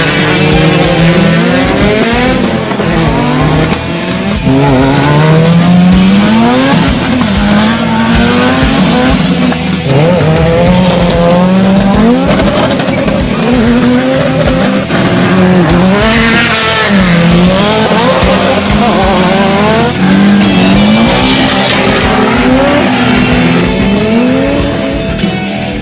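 Drag race car engines revving hard, the pitch climbing and dropping again and again as they shift up through the gears. Tyre squeal comes in twice around the middle, over background music.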